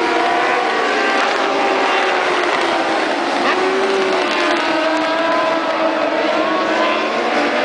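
A pack of Moto2 racing motorcycles, each with a Honda 600 cc inline-four engine, running round the circuit, several engine notes overlapping and slowly rising and falling in pitch.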